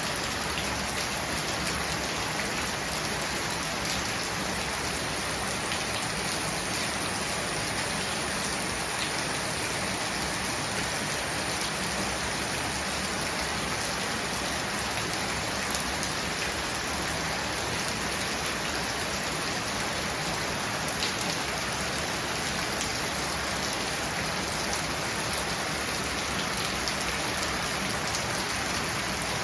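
Steady heavy monsoon rain falling, an even downpour with scattered drop impacts, picked up on a small omnidirectional lavalier microphone.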